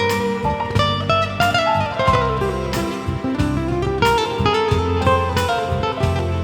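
Instrumental interlude of a slow ballad: guitar picking runs of plucked notes that rise and fall, over held low bass notes.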